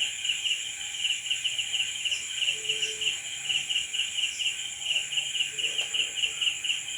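Crickets chirping at night: quick, even pulses, about four a second, over a steady high-pitched trill.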